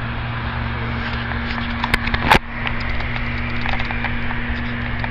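A steady low hum over a background hiss, with two sharp clicks a little after two seconds in, the second one the louder.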